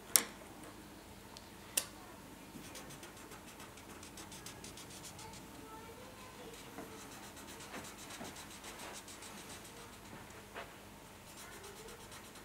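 Felt-tip marker scribbling on paper in fast, rapid strokes, pausing for a moment before starting again near the end. Two sharp clicks in the first two seconds are the loudest sounds.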